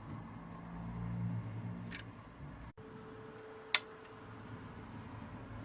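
Small cooling fan newly fitted inside a network video recorder, running with a low steady hum, with a couple of sharp clicks. After a break the hum gives way to a steady higher whine.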